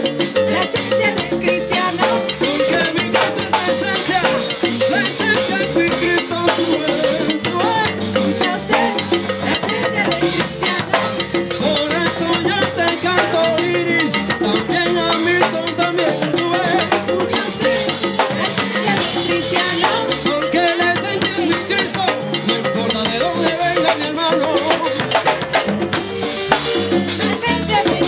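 Live salsa band playing: horns over a drum kit, congas and bongos.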